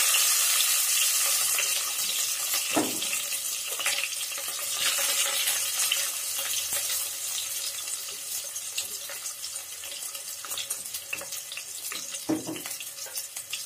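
Sliced onions sizzling in hot oil in a kadai along with popped mustard seeds, loud at first and slowly dying down, with scattered crackles through it.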